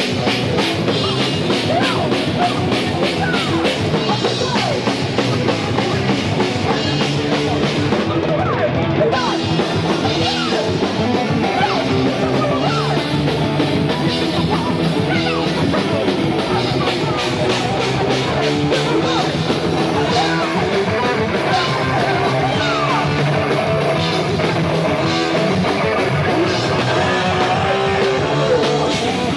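A heavy metal band playing live, with distorted electric guitars, bass and fast, busy drumming without a break.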